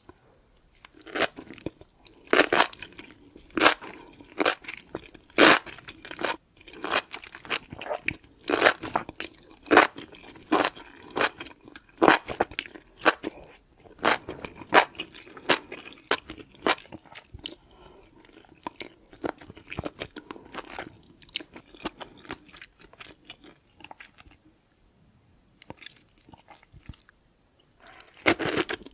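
Close-miked crunchy chewing and biting of food, mukbang-style: sharp crunches about once a second through the first half, then softer chewing, a brief lull, and crunching again near the end.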